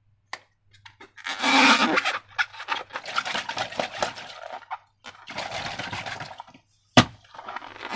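Slime being squished and worked by hand, giving sticky, wet crackling in irregular bursts, with one sharp click about seven seconds in.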